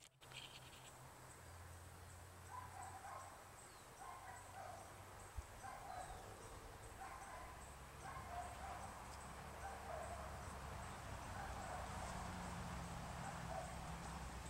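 A dog barking over and over in the distance, short barks roughly once a second, over a steady low rumble.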